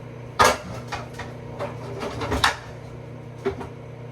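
Kitchen clatter: a metal pot and other things being handled and set down on a stovetop, about seven separate knocks, the loudest about half a second in, over a steady low hum.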